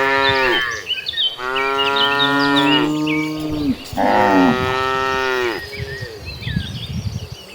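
Cattle mooing: three long, drawn-out moos one after another. The first runs on from just before, and the last ends a couple of seconds before the close.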